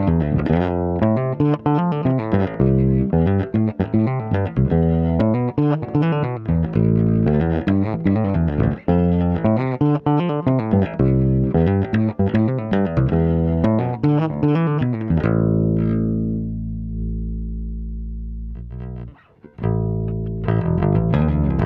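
Grass Roots G-FR-52B electric bass played with the fingers: a run of quick notes, then one note left ringing and slowly fading for a few seconds. After a brief stop, the playing picks up again.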